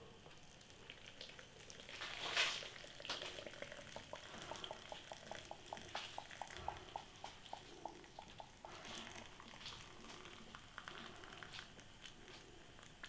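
Just-boiled water from a glass electric kettle trickling faintly in a thin stream into a paper instant-noodle pot. A run of quick soft ticks, about four a second, comes in the middle.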